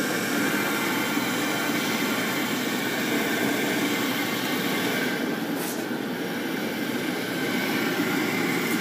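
Waste oil furnace running wide open, its burner and blower making a steady, even noise. The snap disc is bypassed, so the burner runs without cycling off.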